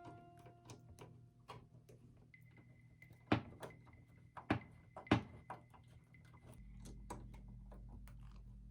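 Scattered sharp clicks and knocks of computer parts being handled, three louder ones a little past the middle, over a faint steady high tone.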